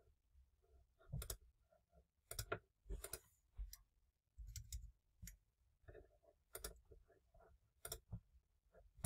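Quiet, scattered clicks of a computer mouse, many in close pairs, spread through the whole stretch.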